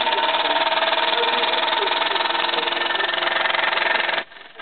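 Mamod toy steam traction engine running under steam, its oscillating cylinder giving a fast, steady beat. The sound drops away briefly near the end.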